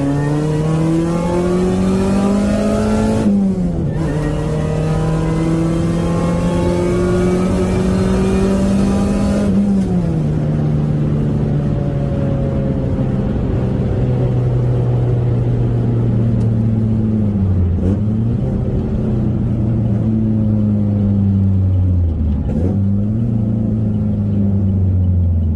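Saturn Ion Redline's supercharged four-cylinder engine pulling hard through the gears. Its pitch rises, then drops at upshifts about 3 and 10 seconds in. After that it cruises at a steady speed, with two brief dips in engine speed near the end.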